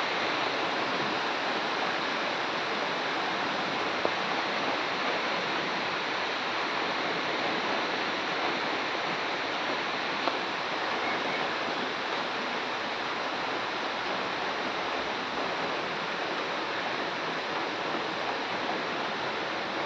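Steady rain falling, an even hiss with no let-up, broken by two brief ticks about 4 and 10 seconds in.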